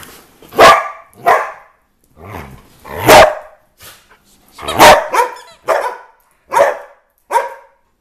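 Pet dogs barking in excited play, about nine short, loud barks at uneven intervals, demanding a squeaky toy.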